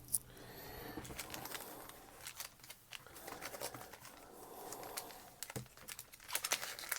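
Soft crinkling and rustling of a foil Pokémon booster-pack wrapper being handled and torn open by hand, with scattered small clicks.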